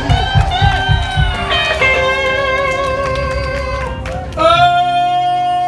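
Live blues band playing: electric guitar bending notes over a pulsing bass and drum beat. About four and a half seconds in, a long held high note comes in and sustains.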